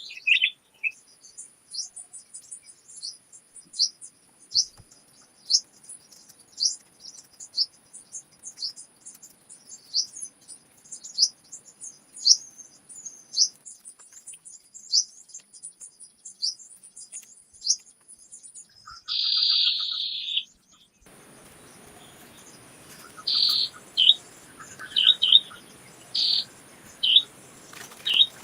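Small birds singing in forest: a high, thin chirp repeated about once a second, then a louder, harsher call, and more calls over a faint steady hiss that comes in about two-thirds of the way through.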